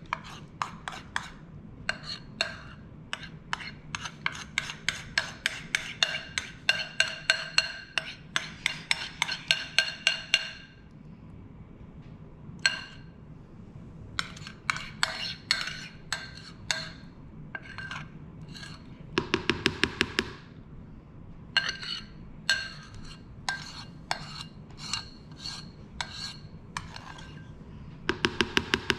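Metal wire whisk clicking and scraping against a ceramic bowl as thick dalgona coffee is beaten by hand, about four ringing strikes a second. The strokes thin out about a third of the way in, and come in quick flurries about two-thirds through and again at the end.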